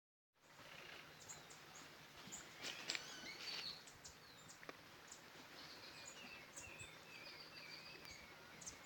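Faint birdsong over a low steady hiss of outdoor ambience: scattered short chirps, and a warbling run of repeated notes a little past the middle.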